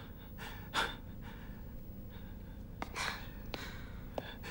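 A man's heavy breathing: a sharp gasp about a second in and another hard breath around three seconds, with a few faint clicks between.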